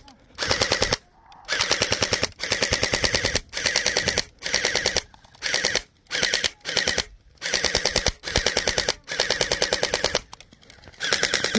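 YaGee DGR-LEI electric gel blaster firing on full auto in about a dozen short bursts, each a rapid rattle of shots lasting under a second, with brief pauses between them.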